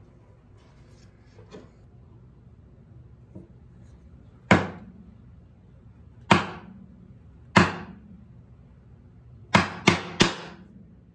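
Wooden mallet striking a chisel, chopping a mortise in pine. Three single knocks about a second and a half apart, then three quick ones in a row, each ringing briefly.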